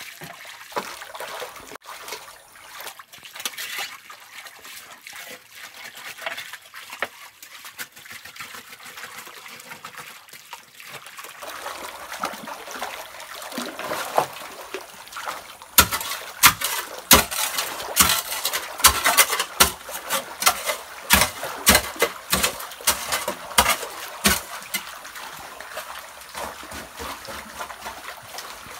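Shallow muddy stream water trickling and sloshing as hands rake and scoop gravel from the streambed. About halfway through comes a run of quick, sharp splashes and clicks lasting several seconds, then the water settles back to a trickle.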